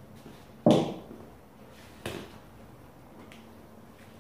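Hard knocks in a woodworking shop: one sharp, loud knock with a short ring about a second in, a softer one around two seconds in, and a faint tick later.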